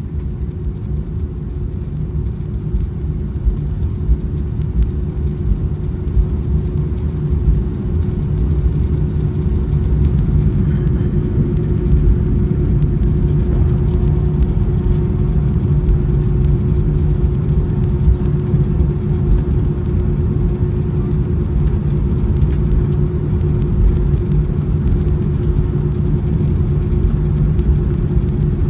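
Inside the cabin of an Airbus A319 taxiing after landing: a steady low rumble from its IAE V2500 engines near idle and the wheels rolling on the taxiway, with a steady hum over it. It grows a little louder over the first several seconds, then holds steady.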